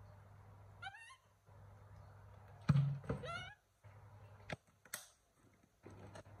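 Baby macaque giving two short, wavering cries that rise in pitch, about one second and three seconds in. There is a loud thunk just before the second cry and a few light knocks after it.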